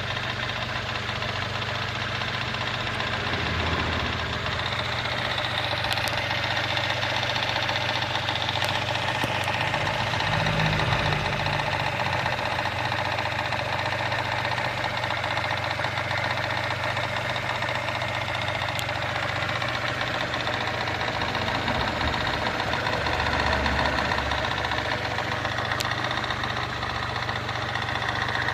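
Mazda 626 engine idling warm at about 600–700 rpm, with a noise from the timing-belt side that the owner suspects is the timing belt and tensioner slapping back and forth from a bad tensioner or tensioner spring.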